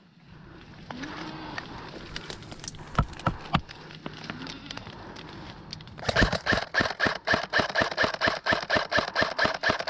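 Airsoft rifle firing a steady string of shots, about five or six a second, starting about six seconds in. Before that, a few isolated clicks.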